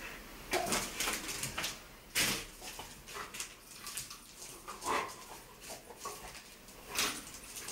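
Pit bull whimpering and yipping excitedly in short bursts, over and over, while it tugs and lunges at a toy.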